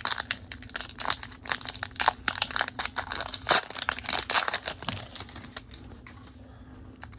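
Foil wrapper of a Pokémon card booster pack crinkling and tearing as it is opened by hand: a dense run of crackles that dies away about five and a half seconds in.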